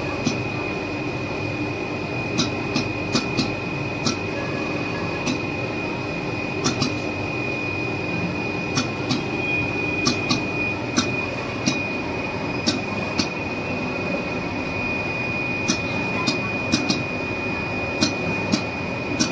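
Richpeace automatic 3-in-1 single-ply cutting machine running: a steady mechanical hum with a constant high whine, broken by sharp clicks at irregular intervals, about twenty in all.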